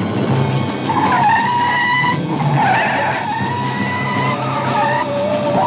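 Car tyres squealing in a series of long, wavering screeches as a big 1970s sedan corners hard, with the engine running underneath.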